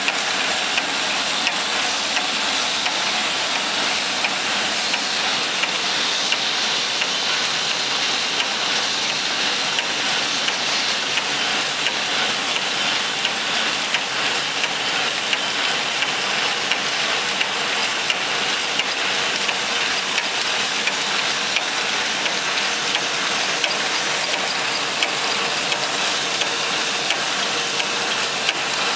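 Envelope window patching machine running steadily: an even mechanical hiss and rumble with a regular light clicking from its moving parts.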